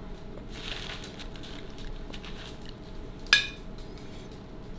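Cutlery and dishes at a table: small taps and a brief scrape, with one sharp, ringing clink of metal on a plate about three seconds in.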